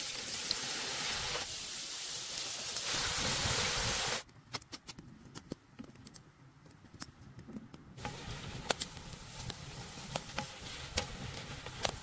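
Shredded potato frying in hot oil in a cast-iron pot: a loud, steady sizzle for about four seconds that cuts off suddenly. A quieter stretch with scattered clicks follows, and from about eight seconds a softer sizzle with frequent crackling pops.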